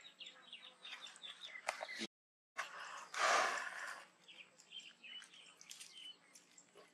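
A small bird calling a quick series of short downward-sweeping chirps, about four a second, which stop a little after a second in. The sound then cuts out for half a second, and a loud rustling hiss follows for about a second before faint scattered chirps return.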